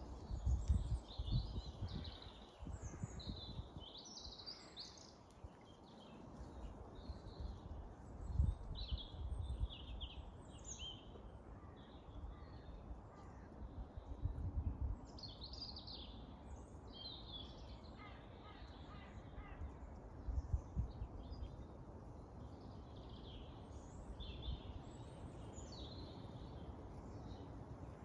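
Dawn chorus of small songbirds, with many overlapping high songs and calls throughout. A few low rumbles come at intervals, the loudest about a second in and again around eight seconds.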